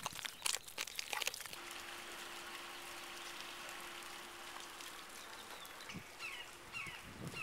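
A quick run of sharp clicks and crackles for the first second and a half, then a faint steady outdoor hiss with a low hum, and a few short falling high chirps near the end.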